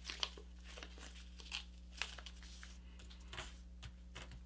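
Faint rustling and crinkling of a sheet of A4 paper being folded and creased by hand as a paper airplane's layers are tucked in, with a few short, soft crackles scattered through.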